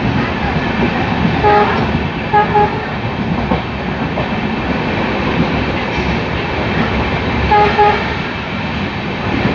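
Passenger train running through a station behind a WDG3A diesel locomotive: a steady rumble and clickety-clack of coach wheels on the rails. The locomotive's horn sounds short toots up ahead: one about a second and a half in, then a quick pair, and another quick pair near the end.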